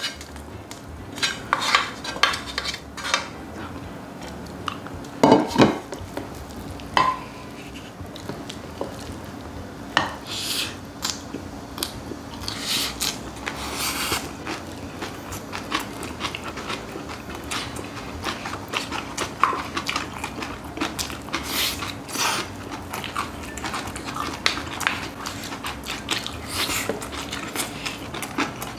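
Spoons clinking and scraping on ceramic bowls and a metal pan, in irregular clatters, with close-up chewing of mixed rice and crunchy raw young radish greens. A louder cluster of clatters comes about five seconds in.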